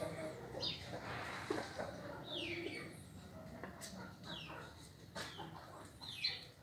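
Chickens calling: short high-pitched chirps that fall in pitch, repeated every second or so, with scattered clicks.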